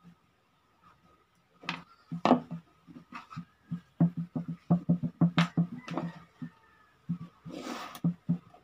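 Blue PVC pipe and reducer fittings knocking and tapping on a tabletop as they are picked up, turned and set down, in irregular clusters. Near the end a short scratchy rub as a pen draws a marking line along the pipe.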